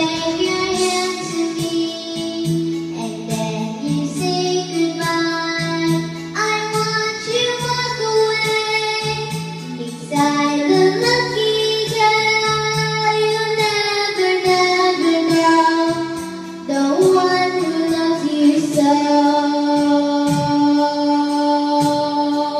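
A young girl singing a slow song into a microphone, a woman's voice singing along with her, over accompanying music, with long held notes.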